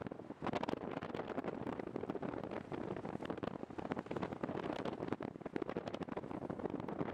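Airflow rushing over the microphone in flight: a steady windy rush with irregular gusty buffeting.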